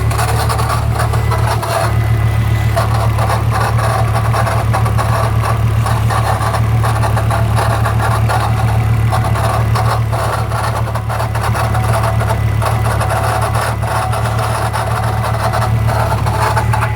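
Car engine idling steadily, with a noise that the owner suspects comes from either the clutch release bearing or the gearbox.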